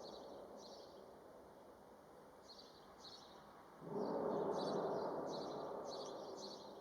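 The unexplained sound heard in the sky: a fading drone dies away, then a fresh one comes in suddenly about four seconds in and slowly fades. Birds chirp throughout.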